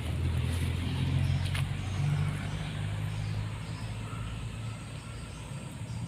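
A low engine hum, loudest in the first couple of seconds and then slowly fading away.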